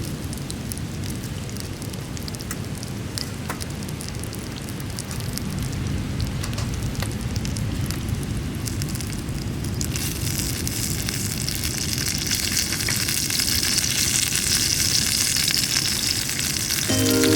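Scattered crackles over a low steady rumble, then a dense sizzling hiss that starts abruptly about ten seconds in and grows louder, like food hitting a hot pan over a campfire.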